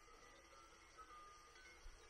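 Near silence with faint, scattered ringing of bells at a few different pitches, each tone held briefly and fading.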